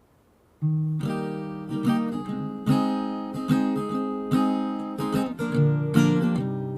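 Background music on a strummed acoustic guitar, starting about half a second in with a chord struck roughly once a second.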